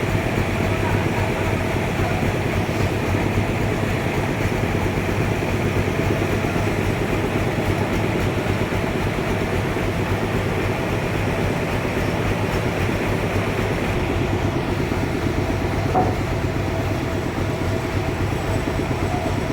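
Sawmill machinery running steadily: a continuous mechanical drone with a fast fine rattle and a steady low hum.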